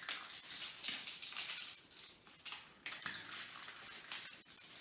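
Eggshells being cracked and crunched by hand: irregular light crackling.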